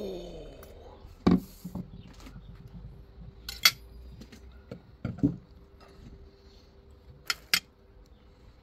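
Dishes and utensils being handled, giving a few separate sharp clinks and knocks spread over several seconds, over a faint steady hum.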